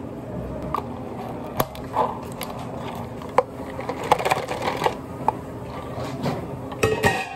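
Drink-making handling noise: irregular small clicks and knocks of cups and metal espresso pitchers being handled and set down, with a stretch of liquid being poured into a paper cup about four seconds in.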